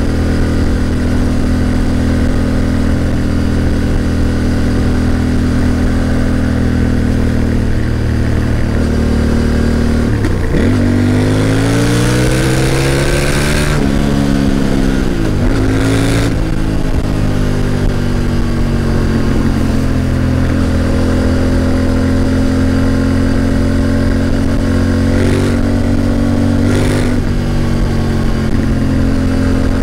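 Yamaha Ténéré 700's parallel-twin engine running steadily at low revs, rising in pitch as it accelerates about a third of the way in, then falling back and settling into a steady run again.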